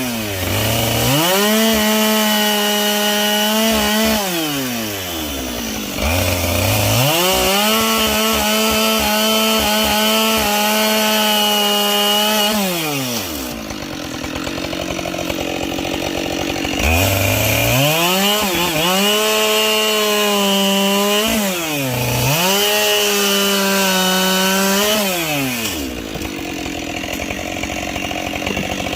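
Two-stroke chainsaw bucking logs: the engine revs up to full throttle, holds there for a few seconds through a cut, then drops back toward idle, about five times over.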